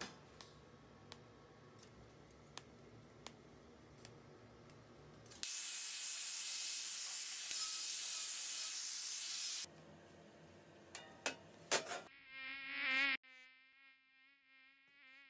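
Light ticks over a low hum as the mesh is TIG tack-welded, then a loud steady hiss for about four seconds from a hand tool worked along the stainless box's weld seam, which stops abruptly. After a few sharp clicks, a mosquito's high whine wavers in pitch near the microphone as an electric fly-swatter racket is swung at it.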